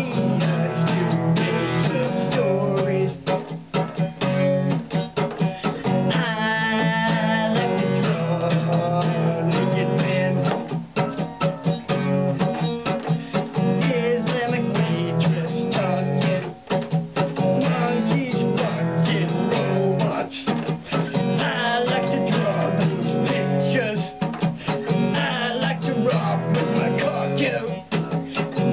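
Acoustic guitar strummed in a steady, quick rhythm of chords, with a few brief breaks in the playing.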